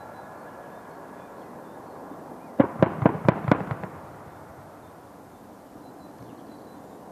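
30 mm cannon fire from an Mi-24P's GSh-30-2 twin-barrel cannon, heard at a distance: a quick string of about seven sharp bangs over a little more than a second, starting about two and a half seconds in, each with an echo. Under it runs a steady low rumble.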